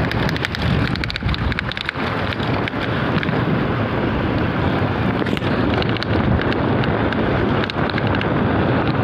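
Wind buffeting the microphone of a camera moving along a road: a steady rumbling rush, with frequent small knocks and rattles throughout.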